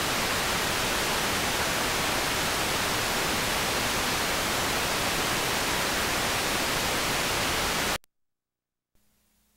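Steady hiss of static from blank videotape, cutting off suddenly about eight seconds in; after a moment of silence a faint low hum comes up near the end.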